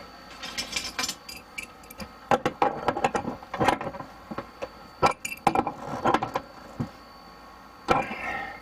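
Irregular clicks, clinks and knocks of small hard objects being handled.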